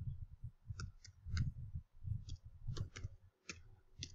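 Computer keyboard keystrokes as an email address is typed: a run of irregular, separate key clicks with dull thumps under them.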